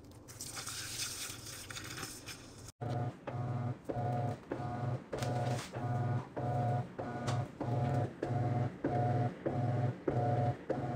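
Top-load washing machine agitating a load of clothes in soapy water. For about the first three seconds there is a splashing, hissing wash of water. Then the drive motor hums in even pulses about twice a second as the agitator swings back and forth.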